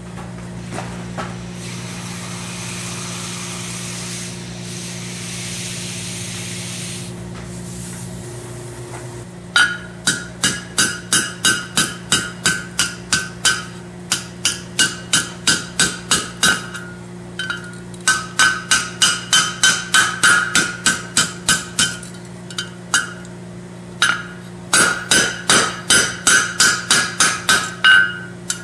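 Blacksmith's hammer striking hot 3/8-inch round steel rod on an anvil horn in light, quick blows, about three a second, each with a bright metallic ring, in three runs with short pauses between. Before the hammering starts, about a third of the way in, there is a steady hiss over a low hum.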